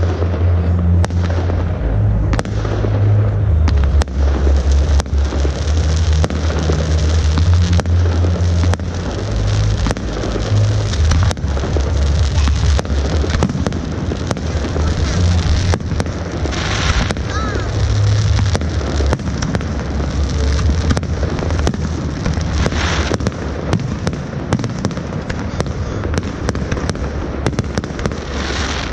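Fireworks going off: a dense, continuous run of sharp bangs and crackles over a steady low rumble.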